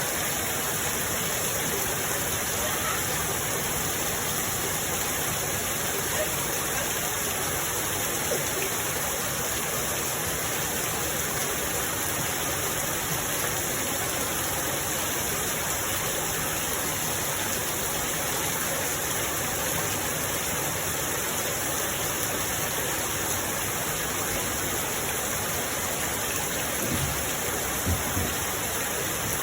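Steady rain falling, a dense even hiss that neither builds nor lets up, with a couple of faint low knocks near the end.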